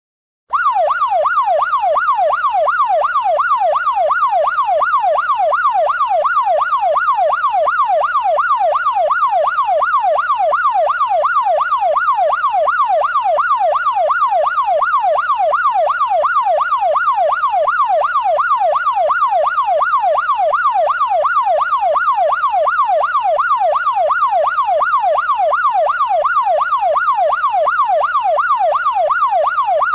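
Electronic police siren wailing in rapid rising-and-falling sweeps, a few per second, steady and loud. It drops out for about half a second at the very start, then carries on unchanged.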